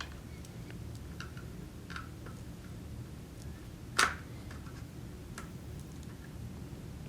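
Light scattered clicks and taps from a screwdriver and the pencil sharpener's plastic parts being handled during disassembly, with one louder click about four seconds in.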